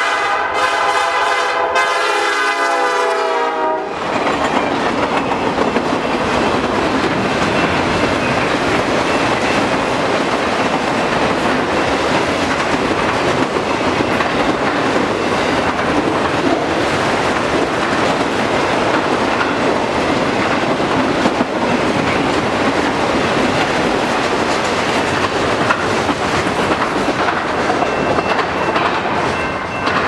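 Norfolk Southern GP38-2 locomotive sounding its Nathan P5 five-chime air horn as it approaches, the chord cutting off about four seconds in. The locomotive and its string of freight cars then roll past, a steady loud rumble of wheels on rail that goes on as the cars go by.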